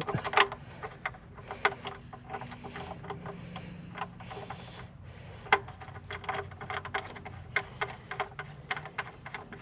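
Scattered light clicks and taps of hand tools and the oil drain plug being handled, irregular rather than in a steady run.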